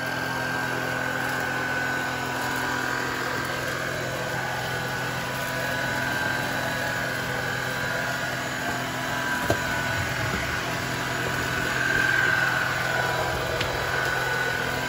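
Kalado cordless stick vacuum's brushless motor running steadily while vacuuming a hardwood floor: an even whining hum over a rushing hiss of suction, with one sharp tick about two-thirds of the way through.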